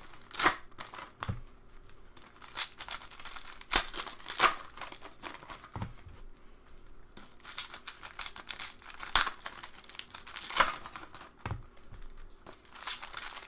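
Hockey card pack wrappers being ripped open and crinkled by hand. Sharp rips and crackles come at irregular intervals.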